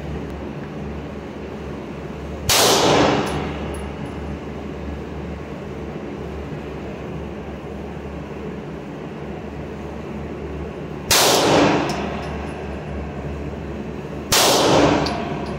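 Three 9mm pistol shots from a Canik METE SFx, each a sharp report with a ringing tail of about half a second in an enclosed shooting range: one a couple of seconds in, then two more about three seconds apart near the end. A steady low hum runs underneath.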